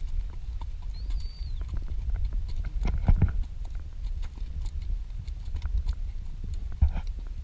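Horses walking on sand: soft, irregular hoof falls, with a louder knock about three seconds in, over a steady low rumble.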